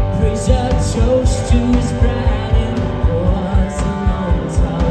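Live rock band playing: distorted electric guitar, bass guitar and drum kit keeping a steady beat, with a man singing lead vocals over them.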